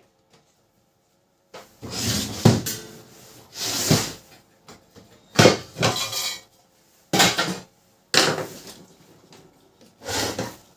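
Hard plastic and metal parts of a laser printer clattering as they are handled and taken apart, in about six short bursts.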